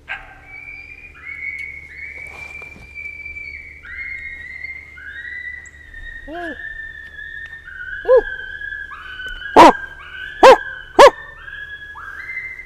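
Coyote vocalizing: a run of high whining yelps, each rising and then sliding down, with five sharp barks starting a little past halfway, the last three very loud.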